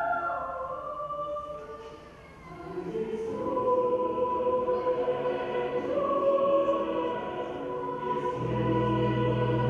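Choir singing slow, held chords. The singing fades to a hush about two seconds in, swells again from about three seconds, and deep steady low notes join near the end.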